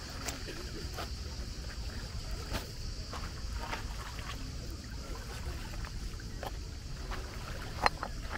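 Seaside ambience: a steady low rumble of wind and water with a constant high hiss, broken by scattered light clicks and one sharper click near the end.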